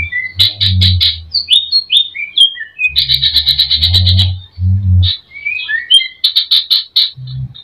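Greater green leafbird (cucak ijo) singing a loud, fast song laced with mimicked calls: rapid rattling trills broken up by short sliding whistled notes, with low thuds under the trill bursts.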